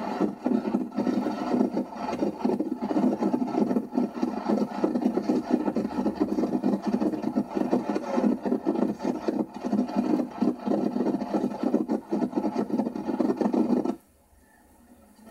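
Wind buffeting a camcorder microphone from a moving car, with a rough, fluttering rush of air and road noise. It cuts off suddenly near the end.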